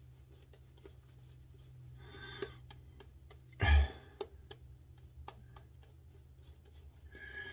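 Shaving brush swirling soap lather on a bearded face: faint scratchy clicks of the wet bristles against skin and stubble, with one brief louder sound about halfway through.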